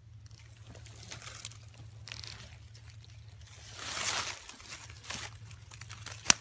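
Dry leaf litter rustling and crackling as it is handled and brushed, in irregular bursts, loudest about four seconds in, with a single sharp click near the end.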